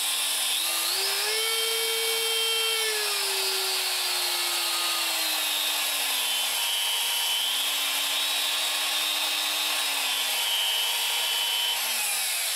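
DeWalt D26204K compact router's motor running free with no bit load while its variable-speed dial is turned: the pitch steps up about a second in, then is wound down over a few seconds, rises a little and holds. Near the end it is switched off and starts to coast down, having no electric brake.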